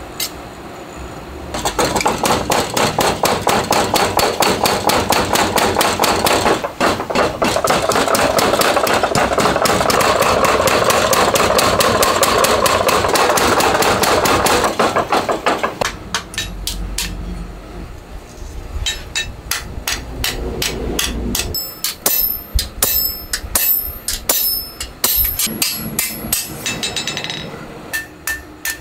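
A mechanical power hammer pounding hot steel in a fast, steady run of blows. About halfway through it gives way to separate hammer strikes on an anvil, steel on steel with a ringing note, as a red-hot knife blade is hand-forged.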